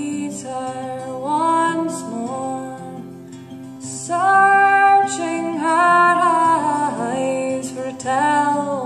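A woman singing a slow folk melody to her own acoustic guitar accompaniment, with long held notes that slide up and down in pitch.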